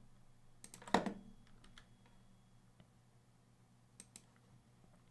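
Computer mouse and keyboard clicks: a cluster of clicks about a second in, one of them sharp and much louder than the rest, and two faint clicks about four seconds in, over a faint steady hum.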